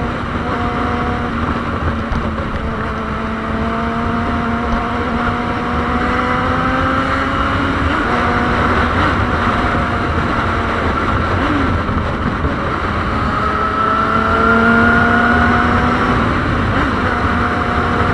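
Yamaha Fazer 600 (FZ6) inline-four motorcycle engine pulling hard while riding, its exhaust note rising in pitch twice as the bike accelerates. The stock exhaust has had its muffler gutted.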